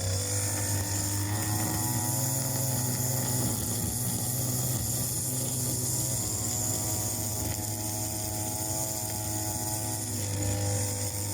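Grass cutter engine running with a steady buzzing drone, its pitch shifting a little a few times as the engine speed changes.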